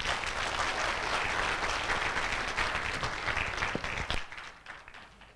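Audience applauding at the close of a lecture: dense, even clapping that fades out in the last second.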